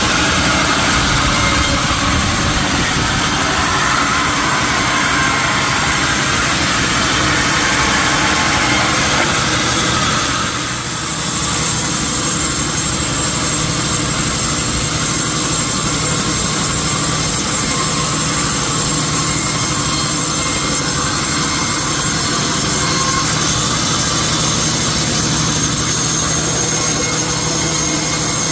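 Sawmill machinery running steadily. About ten seconds in, the sound dips briefly and changes, then carries on with a steady high whine.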